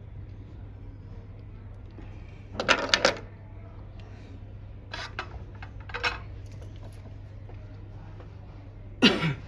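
Small hard clicks and clatter of metal tools and phone parts being handled and set down on a silicone repair mat: a cluster a few seconds in, two short ones midway, and the loudest just before the end, over a steady low hum.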